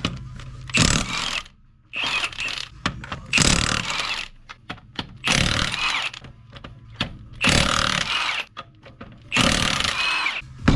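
A power tool run in six short bursts, each under a second long, about every two seconds.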